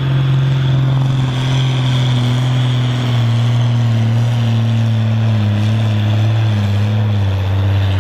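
Ford 8700 tractor's six-cylinder diesel running flat out under full load while pulling a weight-transfer sledge, its engine note sinking slowly as the sledge's drag builds.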